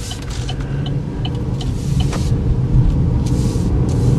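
Cabin noise of a 2012 Chevy Equinox on the move, its 2.4-litre four-cylinder and tyres making a steady low rumble that grows louder as the car picks up speed. A light, even turn-signal ticking runs under it, two or three ticks a second, and stops about two seconds in.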